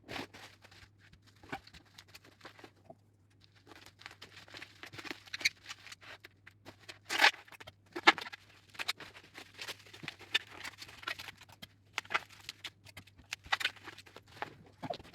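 Rustling and crinkling of packaging as a parcel is wrapped by hand, with packing tape being pulled and torn; two louder sharp rips come around the middle.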